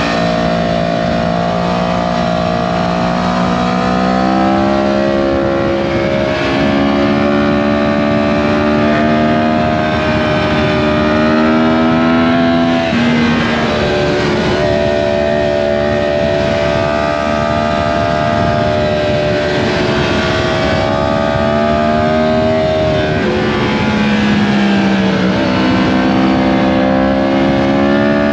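Yamaha MT-10's crossplane inline-four engine running under steady throttle while riding, with wind rush over the microphone. The engine note climbs slowly and dips twice, once near the middle and again about four fifths in, as the throttle eases off.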